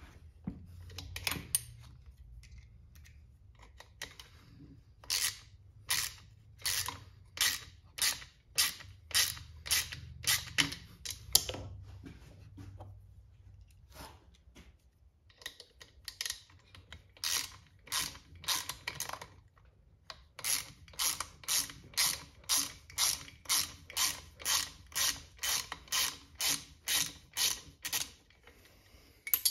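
Hand ratchet worked back and forth to undo a fastener on a small engine, its pawl clicking in short bursts about one and a half times a second, in long runs with a few pauses.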